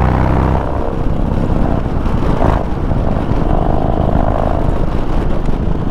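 Harley-Davidson Dyna Street Bob's V-twin engine running steadily while being ridden, with wind noise over it.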